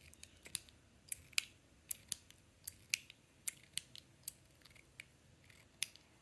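Stainless steel Metal Toys DZ Top B Snake fidget being worked in the hand, its metal parts clicking sharply: a dozen or so irregular clicks.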